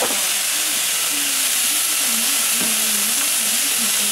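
Oyster omelette and bean sprouts sizzling on a hot griddle pan: a steady hiss.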